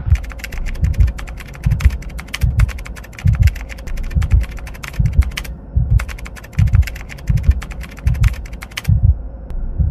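Typing sound effect: a rapid stream of keyboard key clicks, pausing briefly about halfway and stopping near the end, over a deep thump that repeats about every 0.8 s.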